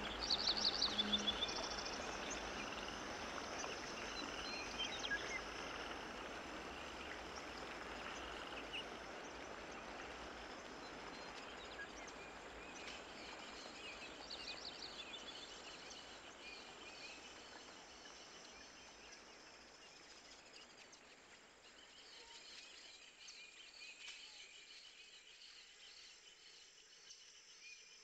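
Faint steady hiss with short trains of rapid high chirps, a little after the start and again midway; the hiss slowly fades toward the end.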